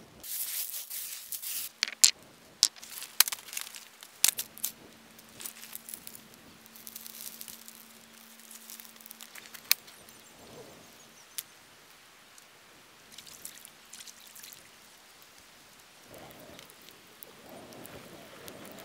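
Stones clacking against each other as they are set in place to build a fire ring, a run of sharp knocks in the first few seconds. After that a campfire crackles with sparse, scattered pops.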